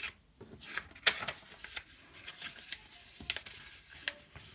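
A sheet of paper being folded and creased by hand, with short crinkles and rustles.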